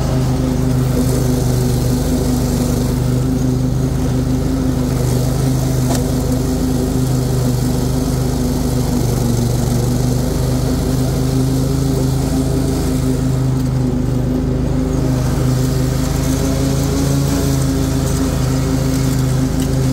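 Briggs & Stratton Extended Life Series engine of an Exmark Quest zero-turn mower running steadily with the cutting blades engaged, mowing grass.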